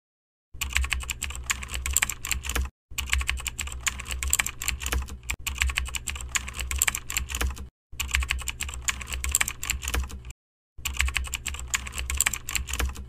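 Rapid computer-keyboard typing, used as a sound effect while text is typed onto the screen. It comes in four runs of fast clicking, each broken off by a brief silence.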